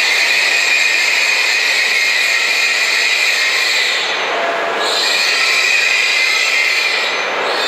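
H5 series Shinkansen train rolling slowly along the platform as it pulls in to stop: a steady rushing hiss with a thin high whine over it, which thins out briefly about four seconds in and again near the end.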